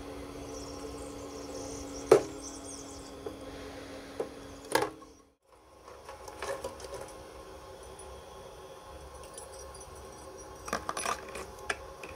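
Handling sounds of small metal parts and wires at an enamel tub: a sharp knock about two seconds in and another near five seconds, over a steady low hum. After a short break, a few lighter clicks and taps near the end.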